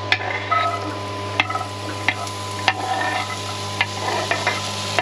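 Diced sweet potato cubes tipped off a wooden cutting board into a hot cast-iron skillet, sizzling as they hit the oil, with sharp clacks against the pan about every second over a steady low hum.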